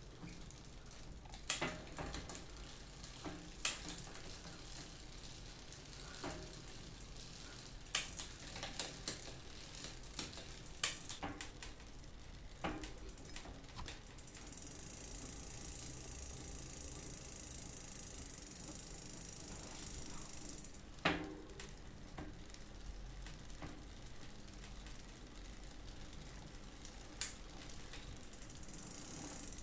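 Mountain bike drivetrain being turned by hand: the chain runs over a narrow-wide oval chainring while the rear hub's freewheel ratchets and clicks. From about 14 to 21 seconds there is a steadier continuous run of the drivetrain, ended by a sharp click.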